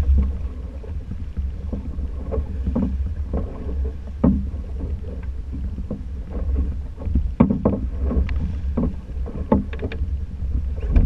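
Small fishing boat at sea: steady low wind rumble on the microphone, with scattered knocks and thumps of the boat and gear, coming more often about seven seconds in.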